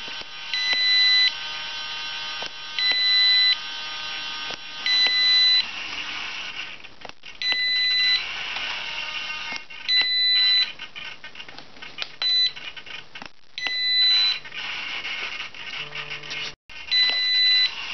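An XK A600 radio-control transmitter beeping over and over: about eight short high beeps, each roughly half a second long and about two seconds apart, with a few faint clicks between them.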